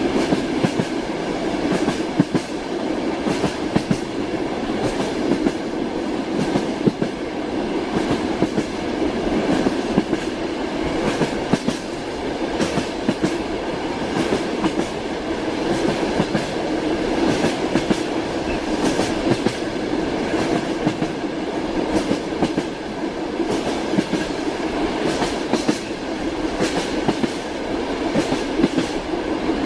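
A train running on rails: a steady rolling rumble, crossed throughout by frequent clacks of the wheels over the rail joints.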